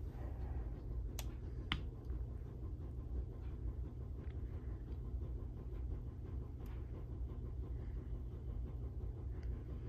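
Fender combo guitar amp switched on and humming steadily while its knobs are turned up, with two sharp clicks a little over a second in.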